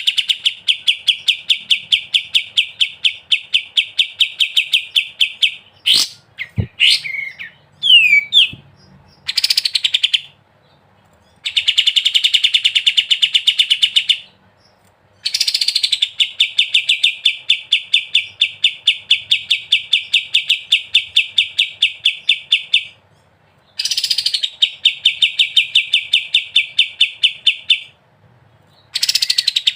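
Kapas tembak songbird singing long runs of rapid, evenly repeated high notes, each run lasting several seconds with brief pauses between runs: the continuous 'ngebren' delivery. Around a quarter of the way in, the runs break into a few varied sweeping notes and a sharp click.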